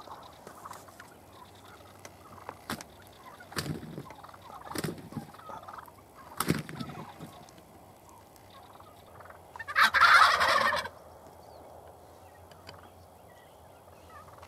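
Wild turkey toms gobbling several times at close range, with one much louder gobble lasting about a second near ten seconds in.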